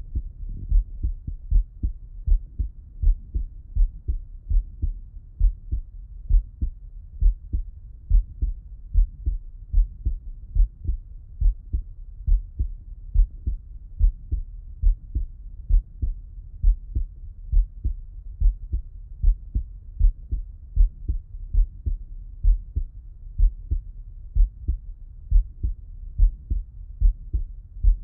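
A man's heartbeat heard through a Littmann stethoscope: a steady, even rhythm of paired lub-dub thumps, deep and muffled.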